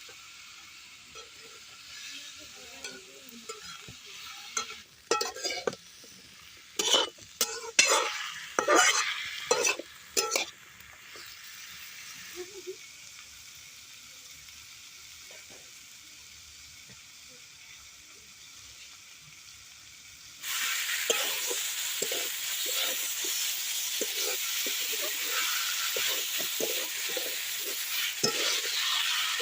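Food frying and sizzling in hot oil in a cooking pot, with a run of loud scraping strokes of a spatula stirring against the pot between about five and ten seconds in. About twenty seconds in, the sizzling suddenly becomes much louder and stays loud and steady.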